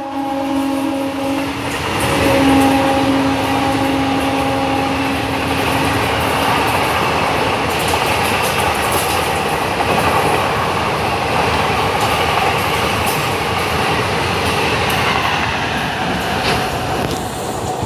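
Express train coaches rushing past at about 110 km/h, a loud, steady roar of wheels on rail with some clatter. In the first six seconds the electric locomotive's horn, already past and lower in pitch, sounds twice more.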